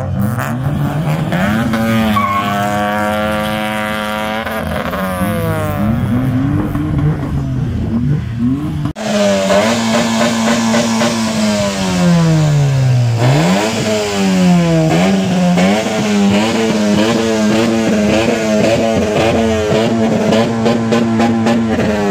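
Car engines revving hard: the pitch climbs, holds high for several seconds and drops back, again and again. There is a change to a different engine about nine seconds in.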